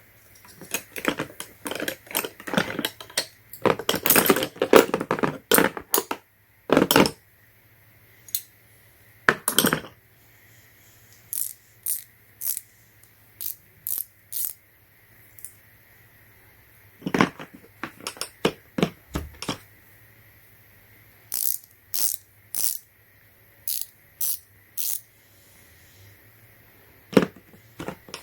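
Metal flex-head ratcheting wrenches clinking against each other and being set into the slots of a hard plastic case: a dense run of clattering in the first six seconds, then separate clicks and knocks every second or so.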